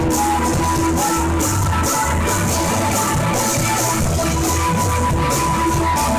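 Live jam band playing amplified rock: electric guitar and keyboards over bass and drums, with a steady beat of hi-hat or cymbal strokes and a long held note.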